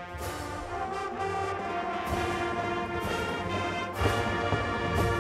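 Marching band's brass section playing sustained full chords, with sharp percussion hits about two seconds in, about four seconds in, and again near the end.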